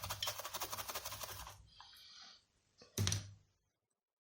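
Rapid scrubbing strokes on the Xbox controller's circuit board, many quick scratchy strokes a second, stopping about a second and a half in. A fainter hiss follows briefly, then one short knock about three seconds in.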